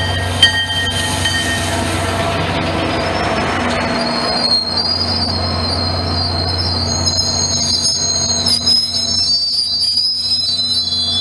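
MBTA commuter train passing close by: the diesel locomotive's steady low rumble, then the coaches rolling past, with a high, wavering wheel squeal from about four seconds in.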